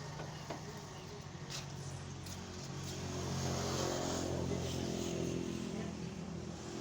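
Motor vehicle engine running steadily, growing louder to a peak about four seconds in and then easing off.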